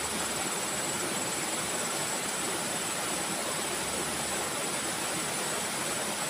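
Steady rush of flowing river water, with a thin, high insect trill running through it that breaks off briefly now and then.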